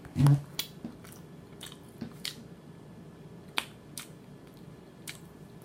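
A person chewing a mouthful of cheeseburger and fries with open-mouthed smacking. A louder mouth sound comes just after the start, then sparse short wet clicks every half second or so.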